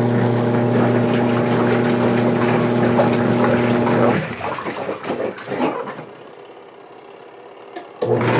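Panda XPB45 twin-tub washer's wash motor humming steadily as it agitates the rinse water, cutting off about four seconds in. Water sloshing follows, then the motor starts again near the end.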